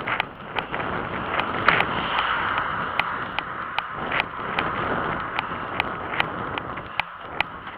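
Running footsteps on an asphalt road, about two and a half strides a second, with wind on the microphone. A car passes about two seconds in and fades as it drives away.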